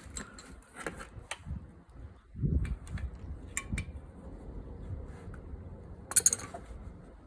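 Scattered metallic clicks and clinks of handling the scooter's spring-loaded oil drain plug and parts, with a low thump about two and a half seconds in and the sharpest clink about a second before the end.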